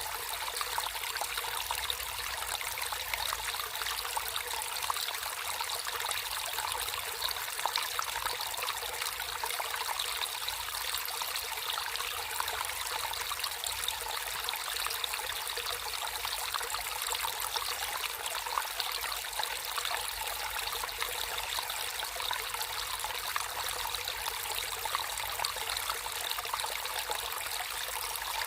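Water flowing and trickling steadily in a natural stream, a light splashing sound with little deep rumble and no change in level.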